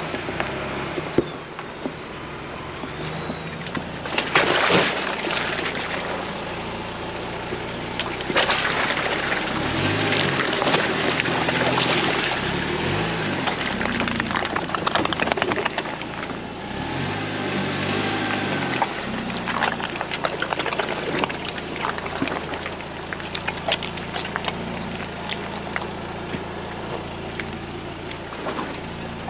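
Ford Bronco driving slowly over a rough off-road trail: the engine rises and falls in pitch several times as the throttle changes, over steady tyre and road noise with frequent knocks and rattles.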